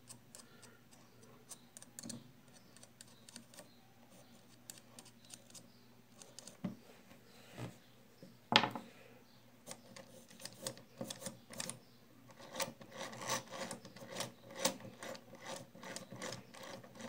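Light clicks and rubbing from hand-turning the main gear of an Abu Garcia baitcasting reel while grease is worked onto its teeth. One sharper click comes about halfway through, and in the last few seconds the clicks come faster and louder.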